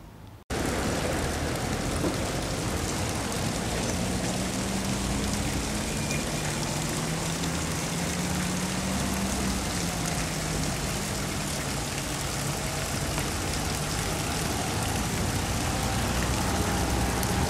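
Steady street traffic noise: a constant hiss of passing vehicles, with an engine hum that rises and falls through the middle.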